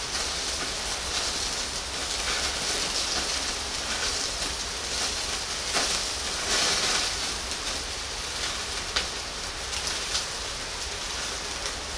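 Pork belly sizzling on a grill over charcoal: a steady hiss with occasional sharp pops and crackles.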